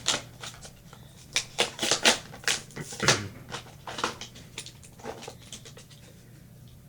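Hands handling a small toy vehicle and its packaging: a quick run of light clicks and rustles, busiest in the first few seconds, then dying away.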